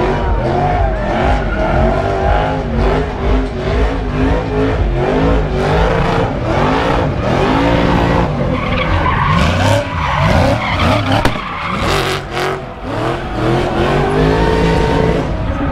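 A car drifting on tarmac, its engine revving up and down again and again over the rough skid and squeal of sliding rear tyres.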